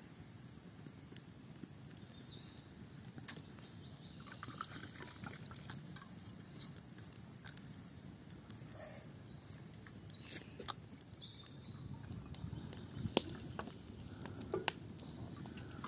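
Water being poured from a terracotta clay jug, with a few sharp clinks, the loudest about 13 seconds in. Birds chirp briefly a couple of times.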